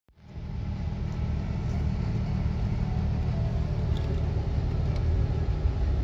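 Toyota Mark II Tourer V's 1JZ-GTE turbocharged inline-six idling steadily at about 1000 rpm, a low, even rumble heard from inside the cabin.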